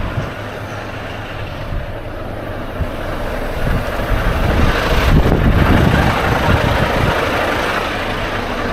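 Volvo FH460 truck's diesel engine idling, heard from outside the open cab, with uneven bumps and scuffs as someone climbs down the cab steps. The rumble grows somewhat louder about halfway through.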